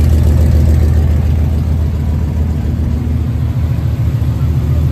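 V8 car engine idling with a steady, loud low rumble.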